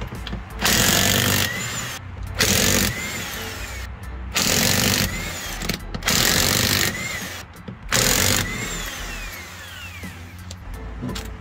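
Corded electric impact wrench hammering a wheel's lug nuts loose, in five short bursts, its motor whining down after each.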